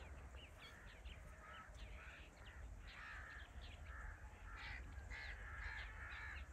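Crows cawing faintly in the distance, many short calls one after another.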